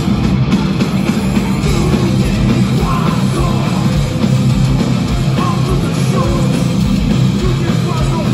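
Heavy metal band playing live through a concert PA, loud electric guitars and a dense low end heard from within the crowd.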